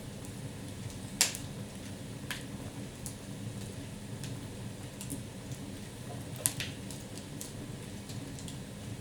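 Wood fire in an open fireplace burning with a steady low flame noise and scattered crackles and pops. The sharpest pop comes about a second in and another about six and a half seconds in.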